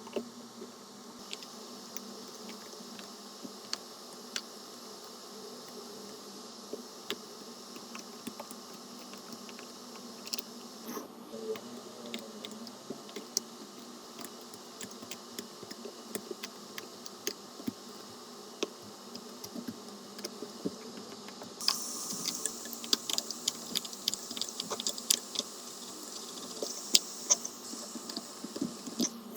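Small sharp clicks and taps of repair tools working on a phone, over a steady low hum. About two-thirds of the way through a high hiss comes in and the clicks come thicker.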